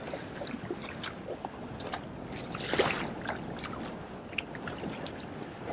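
Lake water slapping and sloshing against the hull of a small fishing boat, with scattered light knocks and a louder burst of splashing a little under three seconds in.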